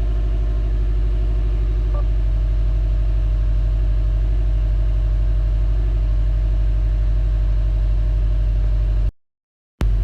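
2017 Subaru WRX STI's turbocharged 2.5-litre flat-four idling with a steady rhythmic knock, the sign of rod knock from a spun connecting-rod bearing. The sound cuts out abruptly about nine seconds in.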